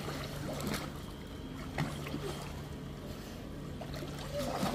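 Swimming-pool water lapping and sloshing, with a few small splashes and a steady low hum underneath.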